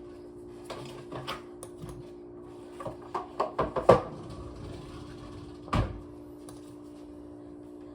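Plastic clicks and knocks of a Nespresso coffee machine being handled, a pod loaded and the head closed, in a quick run of sharp clicks with one loud clack in the middle and another knock a couple of seconds later, over a steady low hum.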